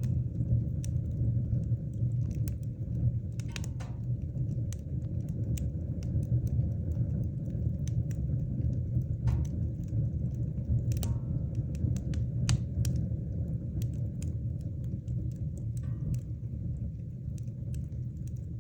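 Wood fire burning in a fireplace: a steady low rumble with scattered sharp crackles and pops from the burning logs, a few louder pops among them.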